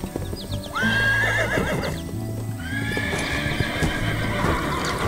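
A horse neighing: two wavering whinnies, the first rising into a shaky trill about a second in, the second longer and starting mid-way, over background music with a steady bass line.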